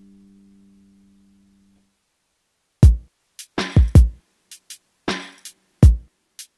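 Background music: a held low chord fades away over the first two seconds. After a short gap, a drum beat starts about three seconds in, with deep kick-drum thumps and sharper snare-like hits.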